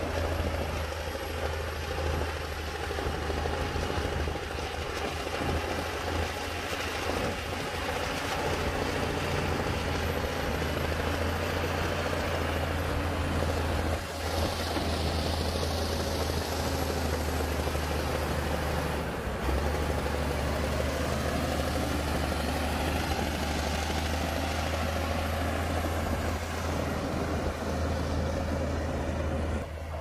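Bulldozer's diesel engine running steadily with a deep drone as it pushes soil, with a hiss that swells for a few seconds around the middle.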